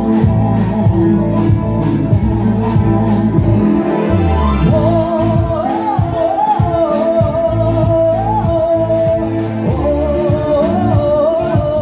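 Live band playing a song with keyboard, electric guitar and drums. A male lead vocal comes in about four seconds in and carries the melody over the band.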